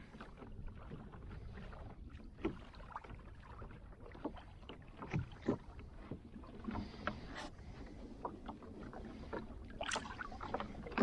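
Water lapping against an Old Town Predator fishing kayak's plastic hull as it moves, with scattered small splashes and knocks. About ten seconds in, a brief louder sound as a hand picks a floating fishing cork out of the water.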